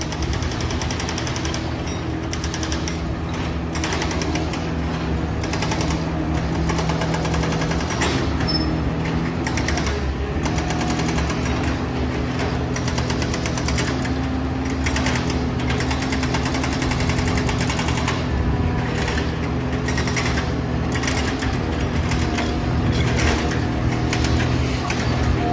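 Komatsu hydraulic excavator's diesel engine working, its pitch shifting up and down, over a fast steady rattling clatter.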